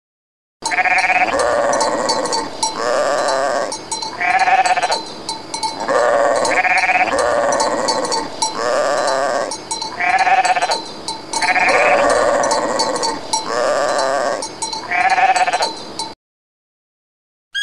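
Sheep bleating over and over, a dozen or so bleats each under a second long, coming one after another before stopping abruptly near the end.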